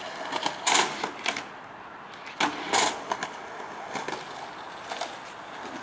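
Skateboard wheels rolling on a concrete skatepark surface, with a steady rolling noise and a few louder scraping bursts along the way.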